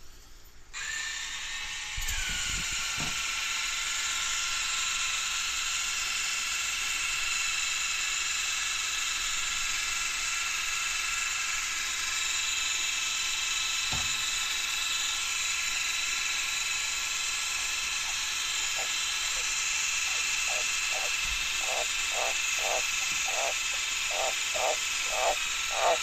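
A misting system sprays into a frog enclosure, making a steady hiss with a pump whine that drops in pitch about two seconds in. From about two-thirds of the way through, a White's tree frog starts calling, a repeated croak about twice a second that grows louder toward the end.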